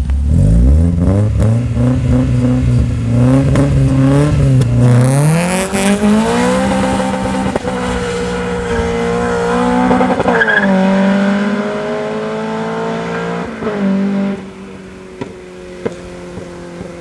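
Toyota 20-valve four-cylinder with individual throttle bodies, in a Nissan Champ bakkie, pulling away and revving up through the gears, its pitch climbing in steps with gear changes about five and ten seconds in. Near the end it eases off and runs much quieter.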